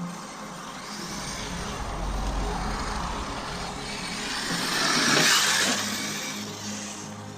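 Brushless electric radio-controlled car driving, its motor and drivetrain noise swelling to its loudest as it passes close about five seconds in, then fading.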